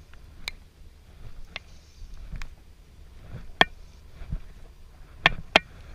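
Sharp clicks and taps from fly-fishing gear being handled while casting from a plastic kayak. They come about once a second, with the loudest about three and a half seconds in and two quick ones near the end, over a low rumble.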